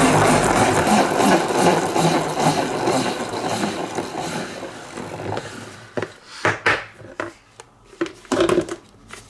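Plastic salad spinner whirring and rattling as its basket spins, the noise dying away over about five seconds as it slows down. A few sharp knocks follow near the end.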